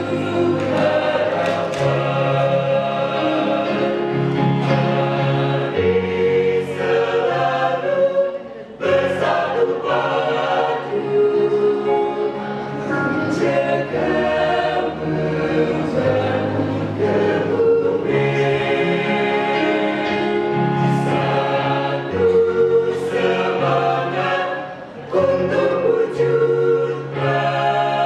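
Mixed choir of girls' and boys' voices singing a hymn, with short breaks between phrases about eight seconds in and again near the end.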